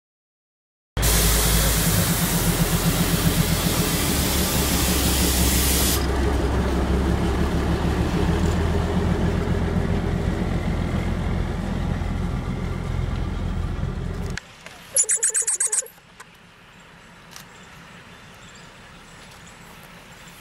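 ZDM-5 narrow-gauge diesel locomotive's engine running close by, steady and low, with a loud hiss over it for its first few seconds. It breaks off to a much quieter scene, broken by a short burst of rapid sharp pulses.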